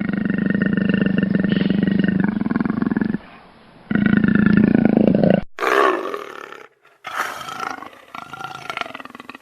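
Lion roaring: two long, deep roars, the second beginning about four seconds in, followed by a run of shorter, higher calls.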